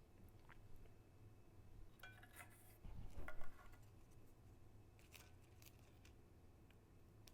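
Crunching of a crispy breaded chicken nugget being bitten and chewed close to the microphone, a cluster of crackles about two seconds in with the loudest crunch just after three seconds, then lighter crackles around five seconds.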